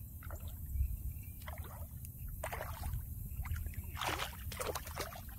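A hooked fish splashing and thrashing at the water's surface beside the boat as it is reeled in, in a run of splashes that grow loudest about four seconds in. A steady low rumble runs underneath.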